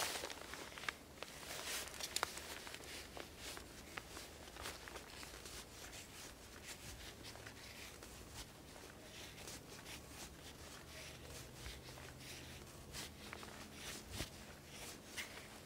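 Knife blade shaving thin curls down a wooden stick to make a feather stick: a run of short, faint scraping strokes at an irregular pace.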